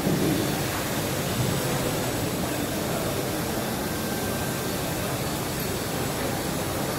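Steady mechanical hum and rushing air noise of industrial machinery running in a workshop, with a brief low bump at the very start.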